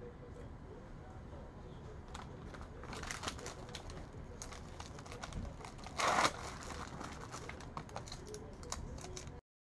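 Plastic packaging crinkling and rustling as it is handled and opened by hand, with scattered small clicks and one louder crackle about six seconds in. The sound cuts off suddenly near the end.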